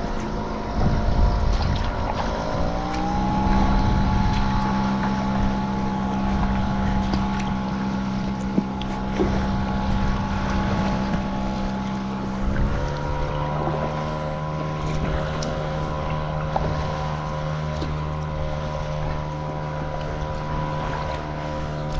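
A motorboat's engine running steadily close by. Its pitch rises about two seconds in, then shifts suddenly about thirteen seconds in.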